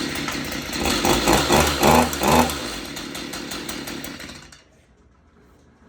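Stihl MS-162 two-stroke chainsaw running unevenly, revved up and down a few times, then dying away about four and a half seconds in. It is running unhappily after its idle screw was turned up because it would not idle.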